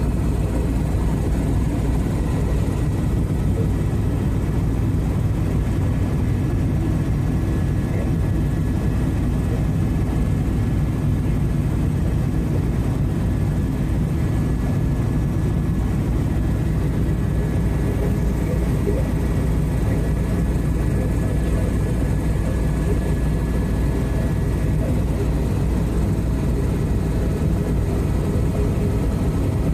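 Steady cabin noise of an Airbus EC130 tour helicopter in flight, heard from inside the cabin: a constant low rotor and turbine drone with a few faint, steady whining tones above it.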